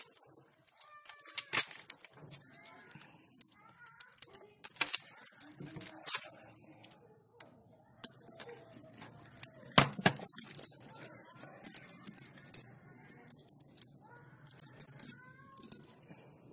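Scattered sharp clicks and light metallic clinks of handling, the loudest about ten seconds in; near the end, a bent steel-wire pot stand clinks as it is fitted onto a log.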